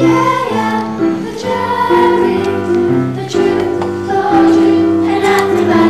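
A choir, likely of children, singing a song in long held notes that change pitch every half second to a second.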